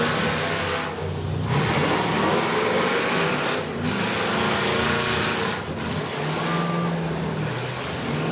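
School bus engines running and revving, with pitch rising and falling, over a dense rumble of machinery noise.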